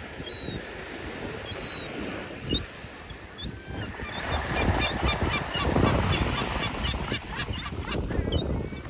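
A seagull calling in short, high squawks: a few spaced apart, then a quicker run of about two a second from around four seconds in, over a low rumbling noise.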